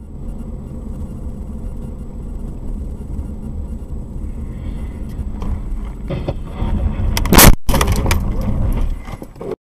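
Road and engine noise inside a car driving on a snowy road, with a few knocks, then a single loud bang of a crash about seven and a half seconds in, followed by jolting and scraping noise that cuts off suddenly.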